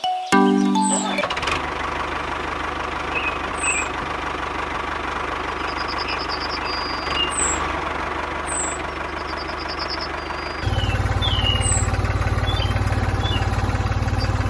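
Motor running steadily. About ten seconds in it gets louder, with a low, rapid pulsing. Birds chirp now and then.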